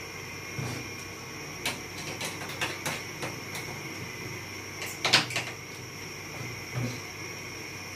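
Scattered clicks and knocks of a screwdriver and hard plastic parts as a split air conditioner's indoor unit is taken apart, the loudest knock about five seconds in. A steady faint high tone runs underneath.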